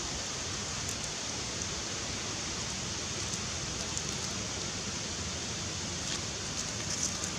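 Steady, even outdoor background hiss with a few faint high ticks scattered through it.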